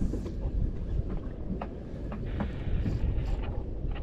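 Steady low rumble of a small boat at sea, with wind buffeting the microphone. A few light clicks and taps come through irregularly.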